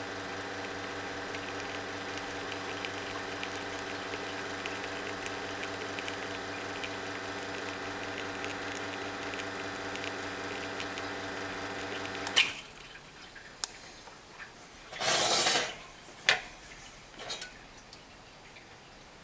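Espresso machine pump humming steadily while an espresso shot is pulled, then cutting off abruptly with a click about twelve seconds in. A short burst of hiss and a few clinks of the porcelain cup on the metal drip grate follow.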